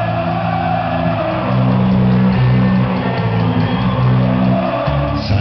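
Loud dance music played over a sonidero sound system, carried by long held low bass notes that change pitch a couple of times.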